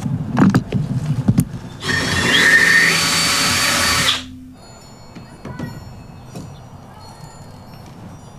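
A few sharp knocks, then a power tool runs with a whine for about two seconds and cuts off.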